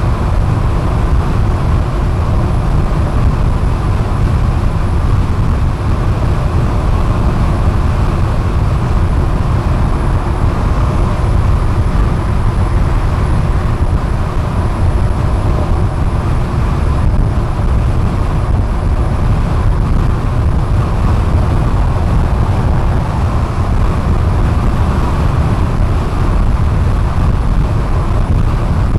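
Car driving at highway speed, a steady low rumble of tyres and engine.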